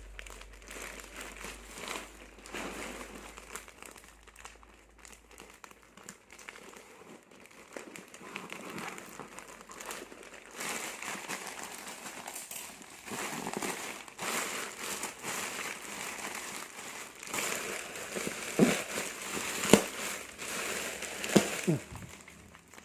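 Plastic parcel wrapping crinkling and rustling as it is pulled and torn open, with a few sharp snaps and short squeaks near the end as the tight wrapping is stretched.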